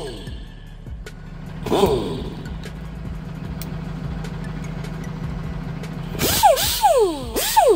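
Pneumatic air grinder run in short trigger bursts, with a rush of air each time and a whine that drops quickly in pitch as it spins down. In between it runs at a steady low speed, and near the end come three quick bursts in a row.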